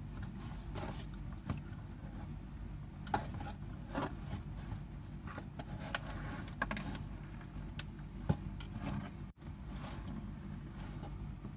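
Scattered clicks and small knocks of metal parts being handled over a steady low hum, as a copper-coated carbon gouging rod is forced into the stiff holder of a new gouging torch.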